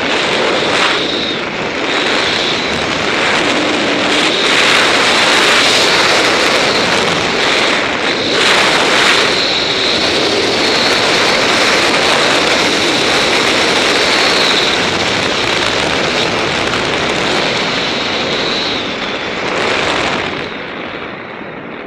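Loud, steady rush of wind over the microphone of a camera flying on a paraglider in descent, easing off near the end.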